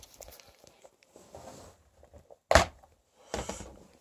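Clear plastic compartment organizer box being handled and opened: a sharp plastic snap of its latches about two and a half seconds in, then a short cluster of lighter clicks and rattles as the lid comes up.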